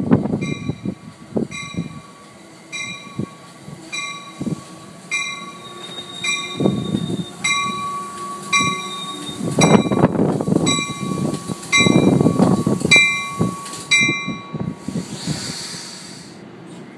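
NJ Transit commuter train led by a Comet V cab car pulling into the station and slowing: its bell rings steadily about twice a second and stops about three seconds before the end, over the rumble and clatter of the wheels. A short hiss of air comes near the end as the train comes to a stop.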